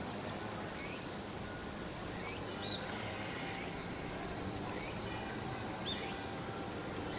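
Steady outdoor background noise with a few brief, high bird chirps, one near the middle and one about six seconds in.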